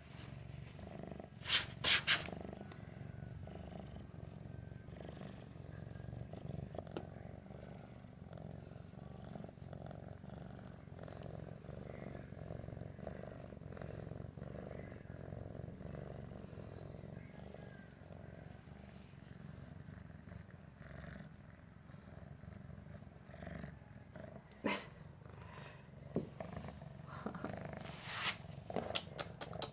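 Young cat purring steadily, with a few sharp clicks or knocks about two seconds in and again several times near the end.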